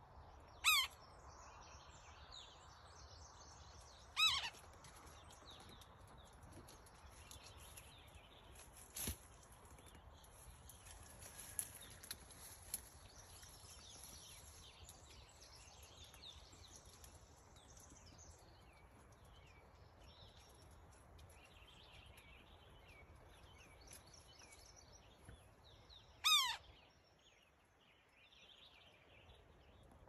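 Red-headed woodpecker giving a loud, brief, downward-slurred call three times: near the start, about four seconds in, and near the end. Faint songs of other birds run underneath, and there is a single sharp knock about nine seconds in.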